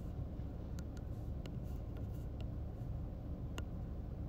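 Steady low room hum with a handful of faint, sharp clicks scattered through it.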